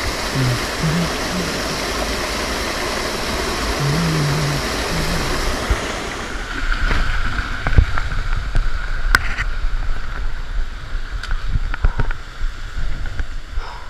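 Rushing water of a mountain torrent and waterfall in a gorge, loud and steady. About halfway through it gives way to wind buffeting the microphone, with scattered sharp clicks and knocks of footsteps and gear on rocks.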